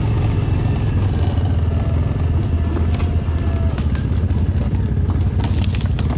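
ATV engine running at a steady, even speed while riding, with a few sharp clicks and knocks near the end.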